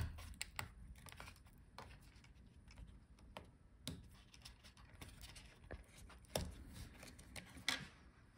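Faint, irregular clicks and scratches of fingers working thin laptop cables free of their routing channels in a metal chassis, with two louder clicks in the second half.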